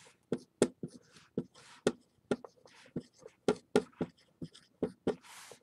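Dry-erase marker writing on a whiteboard: a quick run of sharp taps from the felt tip, about three a second, mixed with short swishing strokes as letters are drawn.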